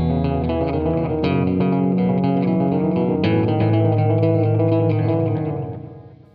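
Background rock music with electric guitar and bass guitar, chords changing about every two seconds, fading out near the end.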